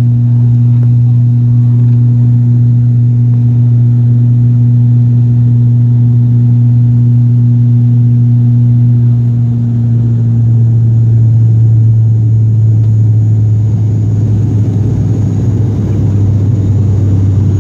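Turboprop airliner's propeller drone heard inside the cabin during the climb after takeoff: a loud, steady low hum that drops slightly in pitch about ten seconds in as the propellers are slowed from takeoff to climb setting, with a rougher rushing noise growing near the end.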